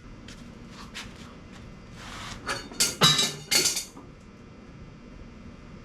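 Metal clinks and knocks of hand tools against metal parts: a few light taps, then a loud cluster of ringing clanks about halfway through.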